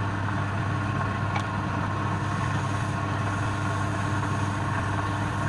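Wood lathe motor running with a steady, even hum, with one brief click about a second and a half in.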